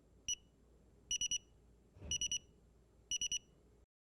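DSC PowerSeries Neo touchscreen keypad sounding its exit-delay countdown after Arm Away is pressed: one short high beep, then three sets of three quick beeps about a second apart.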